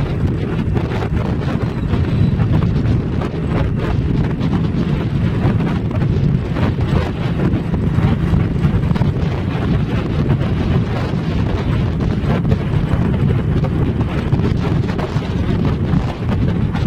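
Steady wind buffeting the microphone over the low rumble of a vehicle travelling at speed.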